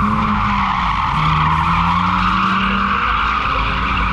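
Drift car with a 2.0 diesel engine sliding sideways, its tyres screeching continuously over a steady engine note.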